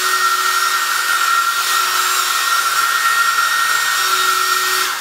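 Wall-mounted hair dryer running steadily: a high whine over a rush of air.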